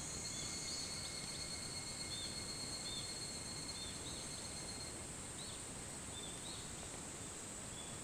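Higurashi (evening cicadas, Tanna japonensis) calling in chorus: short arched notes repeat about once a second over a steady high-pitched insect drone.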